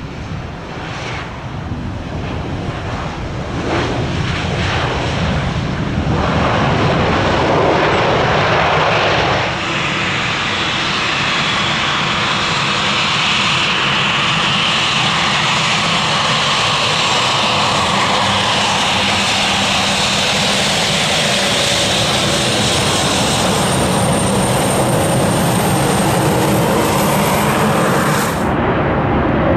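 Embraer E-Jet twin-engine airliner landing and rolling out. The jet engine noise swells to a loud roar about six seconds in, then settles into a steady jet roar with a high whine.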